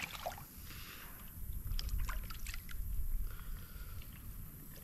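A channel catfish splashing and water dripping as it is lifted out of the river by hand, with a few small splashes about two seconds in, over a steady low rumble.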